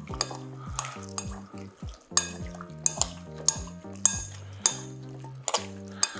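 A metal spoon stirring cauliflower florets in vinegar brine in a glass bowl, with repeated sharp clinks of the spoon against the glass. Background music with sustained low chords runs underneath.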